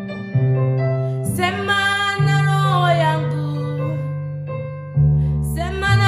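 A woman singing a slow worship song over sustained keyboard chords. Her voice comes in about a second in with a long phrase that falls in pitch, drops out, and returns near the end.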